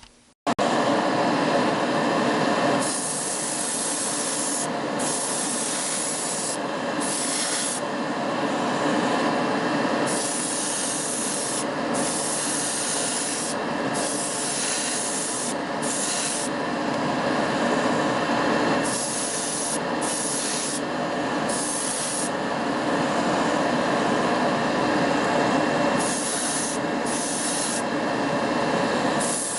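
Clear coat being sprayed onto a diecast car body in repeated hissing bursts of a second or two each, over a steady rushing noise.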